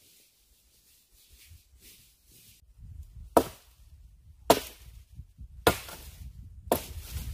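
Chopping wood with a blade: four sharp strikes about a second apart, starting a few seconds in.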